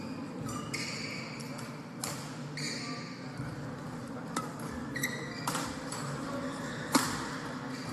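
Badminton rally: a string of sharp racket strikes on the shuttlecock about a second apart, the loudest near the end, with short high squeaks of shoes on the court floor between them.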